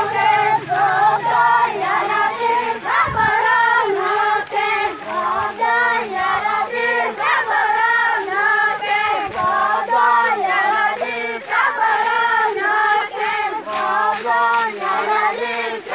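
A group of children chanting a prayer for rain in unison, repeating a short sung phrase over and over.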